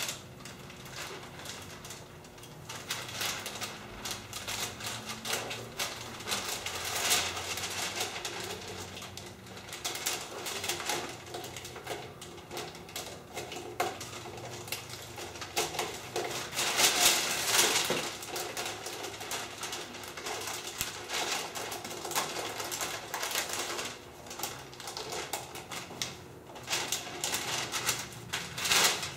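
Masking tape being pulled off the roll and plastic masking sheeting crinkling and rustling, in irregular crackling bursts, as a car is masked for paint.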